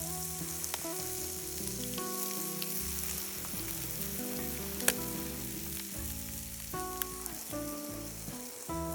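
Food sizzling and crackling as it fries in a pan, with one sharp pop about five seconds in. Background music with a stepping melody plays underneath.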